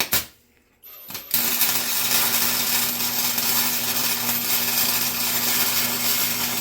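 Electric welder laying a continuous weld bead: a steady crackling arc over a low hum, starting about a second and a half in and cutting off sharply at the end. Two sharp clicks at the very start.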